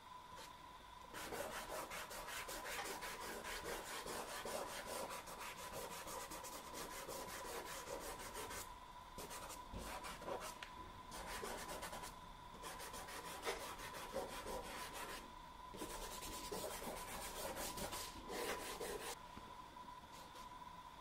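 Soft pastel rubbed and blended by hand across textured pastel paper: fast, scratchy rubbing strokes that start about a second in, break off briefly a few times, and stop shortly before the end.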